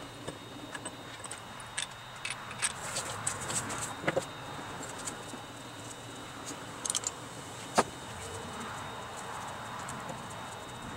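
Small metal parts clinking: camshaft caps and their bolts being handled, wiped with a rag and set back onto a freshly fitted camshaft in a cylinder head. The clinks come irregularly, with a sharper one about three-quarters of the way through.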